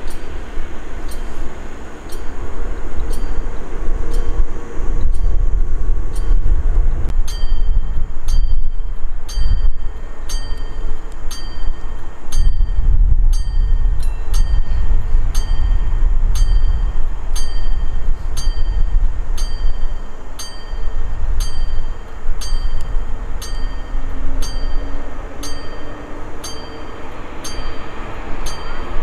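Train running past with a heavy, uneven rumble. From about a quarter of the way in, a bell strikes at an even pace, a little more than once a second.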